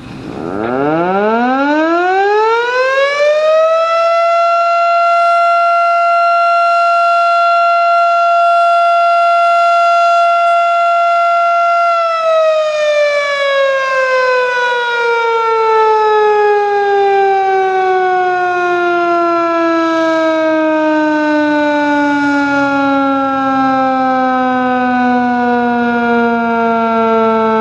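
Outdoor warning siren winding up over about four seconds to a steady high tone. It holds that tone, then from about twelve seconds in winds down slowly, its pitch falling gradually.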